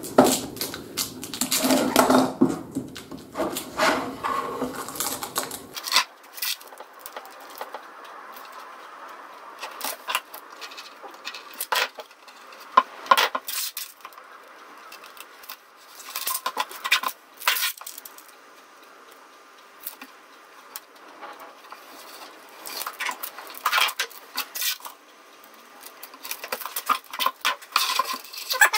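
Hands working over a wooden bench, masking a board with tape and plastic film: scattered clicks and knocks of tools and materials handled and set down, with intermittent rustling of tape and plastic.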